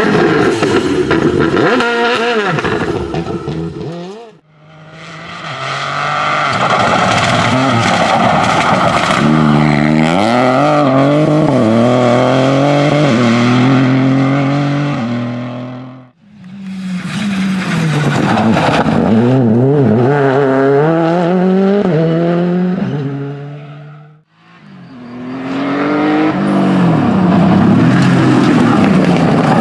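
Rally car engines driven flat out, one car after another in four short clips with abrupt cuts between them: a Škoda Fabia rally car, then a hatchback, then a Porsche 911. Each engine revs hard and steps up and down in pitch through the gears as the car passes.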